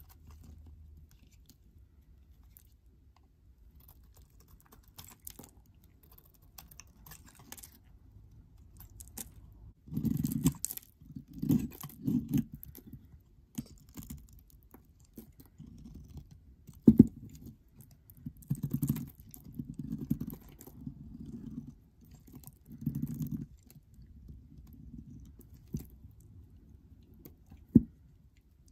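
Snap-off utility knife blade shaving curls off a bar of dry soap: soft crumbly scraping and crunching, faint at first, then louder stretches from about ten seconds in, with two sharp clicks.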